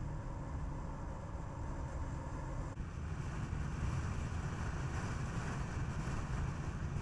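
Skoda Kodiaq driving along a road: a steady low rumble of tyre and wind noise. About three seconds in the noise dips briefly, then the hiss grows brighter.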